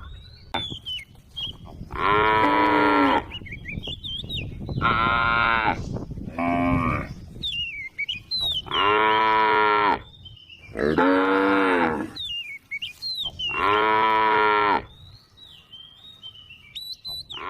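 Cows mooing: six long moos of about a second each, spaced a couple of seconds apart.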